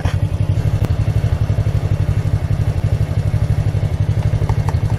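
A vehicle engine idling with a steady, even low throb. Faint regular ticks come in near the end.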